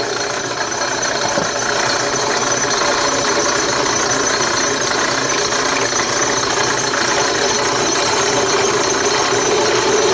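Drill press spinning a small sanding drum, a steady mechanical running noise. About eight seconds in a steady tone joins it as an MDF workpiece is pressed against the drum to sand its edge.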